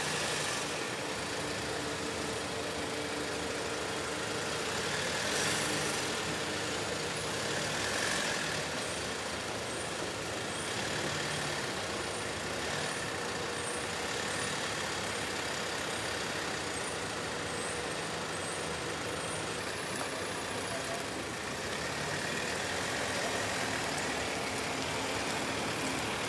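Engines of a slow-moving convoy of police motorcycles and a military vehicle running steadily as they pass.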